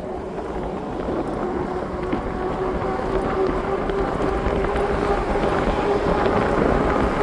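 The Heybike Ranger S's 1000 W brushless motor whining steadily under pedal assist, its pitch and loudness rising slightly as the bike speeds up, with wind rushing over the microphone.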